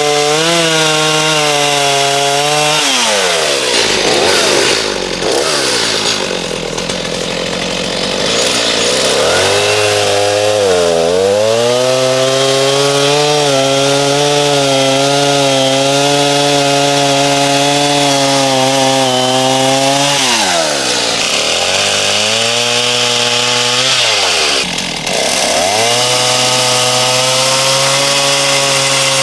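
Stihl two-stroke chainsaw held at high revs bucking red oak into firewood lengths, dropping to a low idle about three seconds in, revving back up about ten seconds in, then easing off and revving up twice more near the end.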